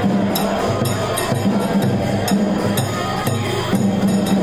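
Japanese folk festival music: percussion striking a steady beat about twice a second over low sustained tones that move in steps.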